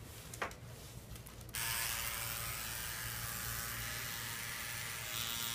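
Electric microneedling pen switched on about a second and a half in, then running with a steady motor whir.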